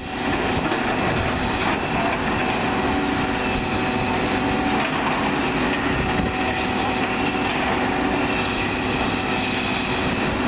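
Wind buffeting the microphone over the steady engine hum of hydraulic excavators at work.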